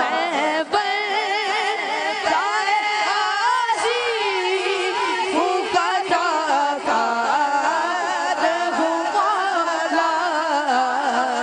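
Naat music between sung lines: a wordless, melismatic vocal melody with wavering, gliding pitch, several voices overlapping.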